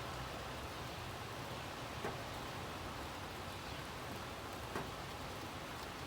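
Steady rain falling, with a low rumble underneath and two sharp drip taps, about two seconds in and near five seconds.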